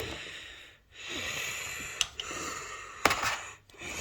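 Breathing close to the microphone, in repeated breaths with short pauses, and a couple of sharp clicks from handling.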